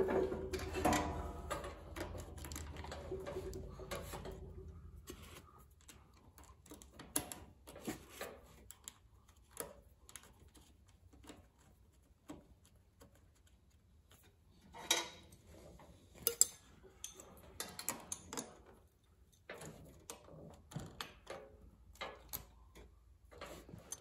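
Scattered light metallic clinks and taps from a battery cable terminal and its nut being worked onto a lead-acid battery post by hand and wrench.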